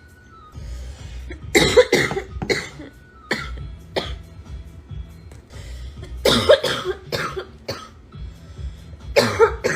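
A girl with a cold coughing hard in several short fits of quick, harsh coughs. Faint music plays underneath.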